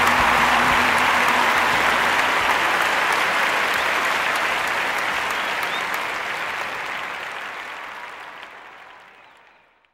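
Audience applauding, a steady dense clapping that fades out gradually to silence over the last few seconds.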